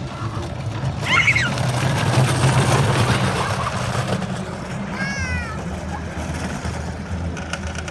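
A ride-on toy cart rolling down a paved hill: a steady rumble of wheels with a rush of wind and motion noise, loudest early on. Two short, high, sliding squeals cut through it, one about a second in and one about five seconds in.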